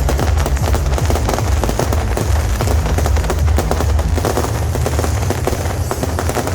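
Beehive firework rockets going off in a dense, continuous volley of rapid cracks and pops, many firing at once.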